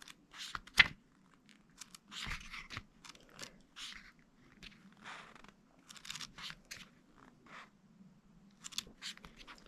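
Pages of a paper guidebook being turned and handled: a string of short, irregular papery rustles and scrapes, with a sharp tap about a second in.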